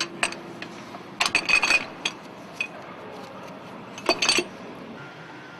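Steel hand tools and bolts clinking and rattling against metal while a bracket is unbolted from an engine's cylinder head and exhaust manifold. The clinks come in short clusters, the loudest about a second and a half in and again about four seconds in.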